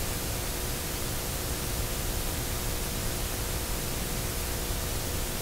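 A pack of Slingshot race cars running together at steady pace-lap speed before the start: a constant wash of engine noise with a hiss on top, with no revving or sudden sounds.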